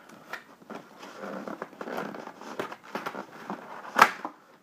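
A tight-fitting cardboard presentation box being handled and worked open, with rustling, scraping and small clicks and one sharp click about four seconds in.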